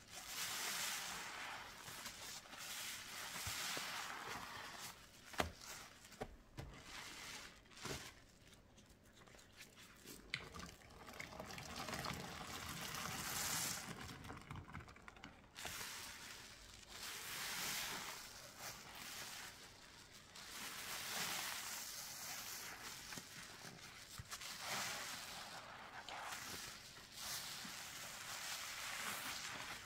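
Soapy water and thick lather squelching and trickling as a suds-loaded sponge is squeezed again and again, in swells every couple of seconds. A few sharp clicks come in the first half.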